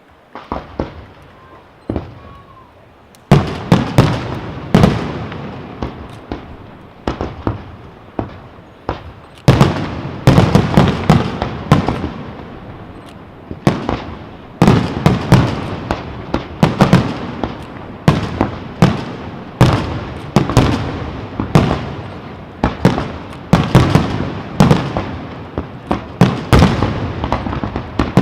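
Aerial fireworks display: a few faint pops, then from about three seconds in a dense, continuous barrage of shell bursts and bangs, each trailing off in echo.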